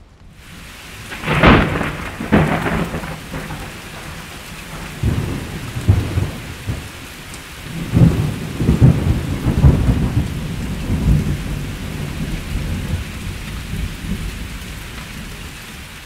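Thunderstorm: steady rain fades in, and a sharp thunderclap comes about a second and a half in, with a second crack soon after. Rolling thunder rumbles on in waves through the middle and slowly dies down near the end, under the constant rain.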